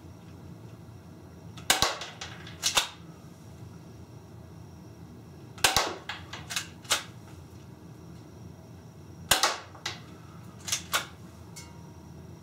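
Crosman Stinger 311 airsoft pistol fired three times, about four seconds apart. Each sharp snap is followed by a few quieter clicks and clacks.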